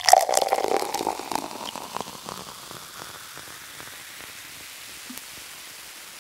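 A burst of dense crackling noise, loud at first, that fades over about three seconds into a faint steady hiss.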